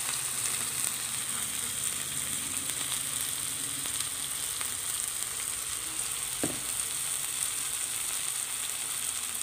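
Onions, ginger and garlic frying in hot oil in a steel kadai: a steady sizzle, with one brief click about six and a half seconds in.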